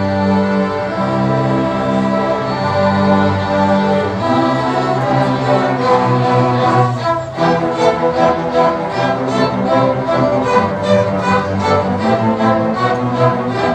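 A school orchestra of violins and cellos playing a piece: long held chords at first, then from about halfway a steady pulse of short, detached notes, roughly three a second.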